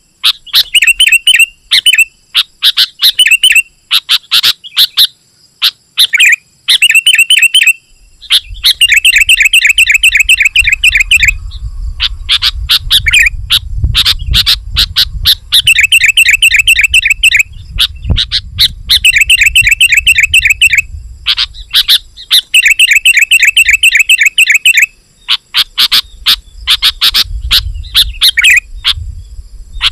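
Sooty-headed bulbul singing in full voice: dense, chattering bursts of quick repeated notes, one after another with short gaps. A low rumble runs underneath through much of the middle.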